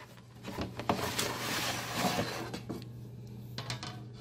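A cardboard shipping box being handled and a sheet-metal under-seat amp bracket slid out of it: a few light knocks, then a stretch of rustling and scraping, then a few more small knocks.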